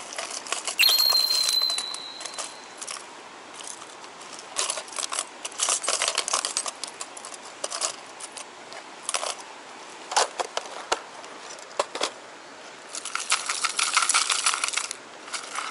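Hard plastic fishing lures and their treble hooks clattering and clinking as hands rummage through plastic tackle boxes: irregular clicks and rattles, densest near the end. About a second in, a sharp click followed by a high steady tone lasting a second or two.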